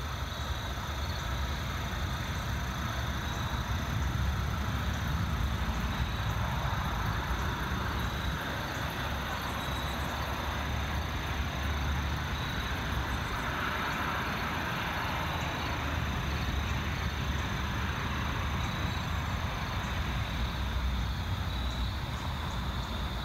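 Steady outdoor ambience by a lake: a constant low rumble and hiss, with thin high steady tones that pulse faintly about once a second.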